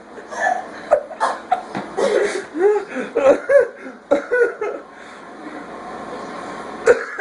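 People laughing in short bursts, dying down after about four seconds. A single sudden, loud hiccup comes near the end.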